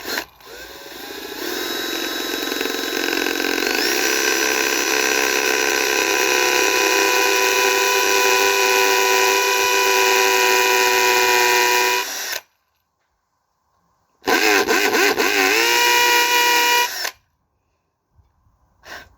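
Electric drill with a 4 mm bit whining as it spins up and bores through a thin metal jar lid. It rises in pitch as it gets up to speed, runs steadily for about eleven seconds and stops. After a short pause it runs again for about three seconds.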